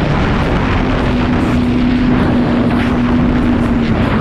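Sea-Doo jet ski's engine running under way. Its pitch dips briefly, then rises about half a second in and holds steady, over a loud wash of wind and water noise.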